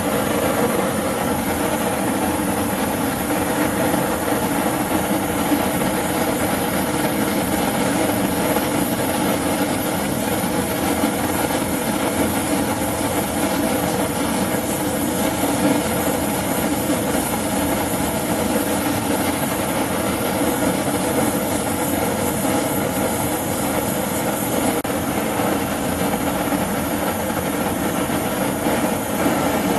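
LPG/propane flame torch burning steadily at full bore, an even, unbroken rush of gas flame, while a silver-solder joint is heated.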